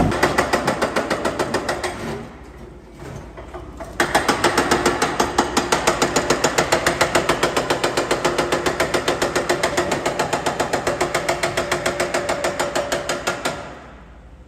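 Concrete breaker hammering at a concrete floor slab, demolishing it: rapid impacts at about six a second. A short burst stops about two seconds in, and after a pause a long run starts about four seconds in and stops near the end.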